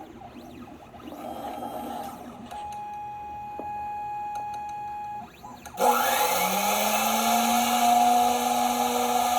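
Computerised key cutting machine running a cut: small motors hum and whine as the carriage positions the clamped key, then about six seconds in the cutter spindle starts with a sudden jump in level and a rising whine, settling into a steady loud run.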